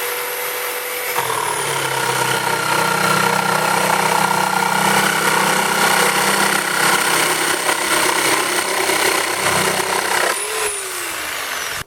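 Electric jigsaw with a Bosch 10-TPI wood blade, its teeth already blunted by cutting through nails, sawing through an oak floorboard. The motor is running free at first; about a second in the blade bites and the pitch drops under load for about nine seconds. Near the end the blade comes free, the motor speeds up briefly and then winds down.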